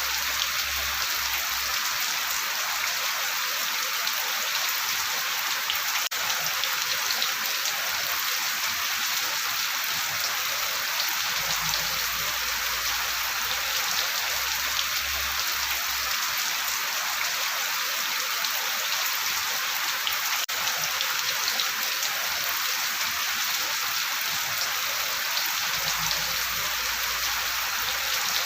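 Steady rain falling: a dense, even hiss of drops with small individual drop ticks sprinkled through it.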